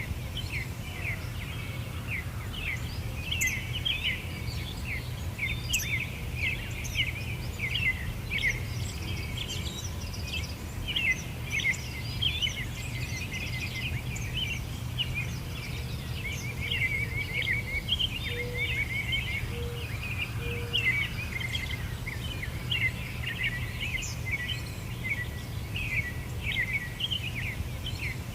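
Many small songbirds chirping and twittering rapidly and without pause, over a steady low background rumble. Three short low notes sound about two-thirds of the way in.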